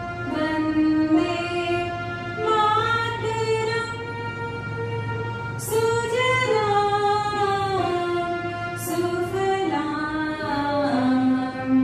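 Women's voices singing a slow patriotic Indian song together as one melodic line, holding long notes and gliding between them, over a steady low keyboard tone.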